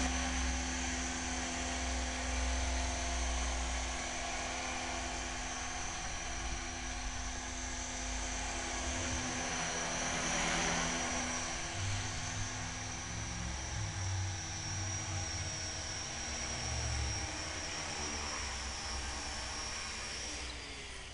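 Align T-Rex 450 V2 electric RC helicopter in flight: a steady high electric-motor whine over the hum of the spinning rotor, shifting as it manoeuvres. Near the end it sets down on the grass and the whine falls away.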